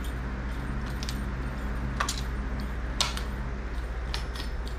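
Small bells on a feather wand cat toy jingling in short shakes, loudest about two and three seconds in, over a steady low hum.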